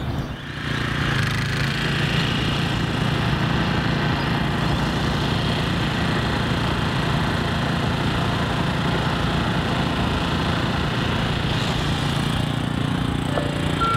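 A small engine running steadily at a constant speed, giving an even low drone that comes up just after the start and holds without change.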